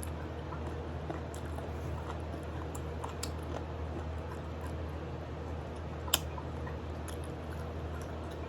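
Mouth chewing and biting on adobo chicken feet, with scattered small clicks and one sharper click about six seconds in, over a steady low hum.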